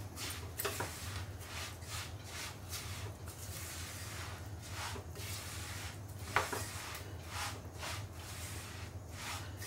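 Spatula stirring a thick mix of sesame seeds, peanuts and melted jaggery fast in a nonstick kadhai: repeated rough scraping strokes over a low steady hum, with one sharp knock a little past the middle.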